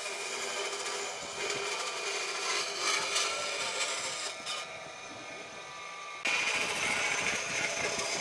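Power tool working wood, running steadily; it eases off and then suddenly comes back louder about six seconds in.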